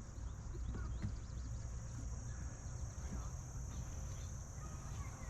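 Outdoor ambience dominated by a steady, high-pitched drone of insects, with faint scattered chirps and a low rumble underneath.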